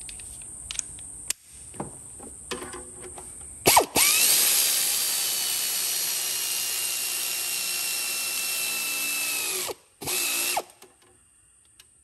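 Pneumatic air ratchet running a bolt into the power steering pump bracket. A few clicks as it is set on the bolt, then about six seconds of steady air-motor whine that sags slowly in pitch as the bolt runs in. A short second burst follows just after ten seconds in.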